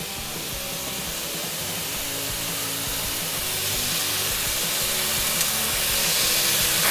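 Beef slices, onions and ginger sizzling in a hot oiled pan, the sizzle growing steadily louder, with background music underneath.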